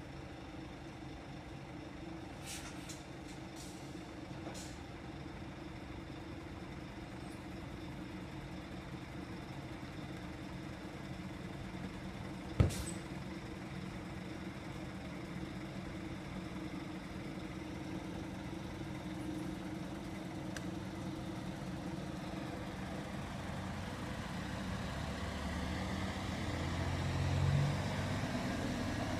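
Diesel engine of a OUIBUS coach idling steadily, a low drone over the rumble of city traffic. A single sharp knock comes about halfway through, and a deeper engine rumble swells near the end.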